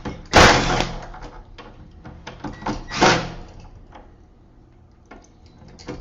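Two screws being taken out of a deadbolt's faceplate in the edge of a door: two short loud scraping bursts about half a second and three seconds in, with scattered small metal clicks.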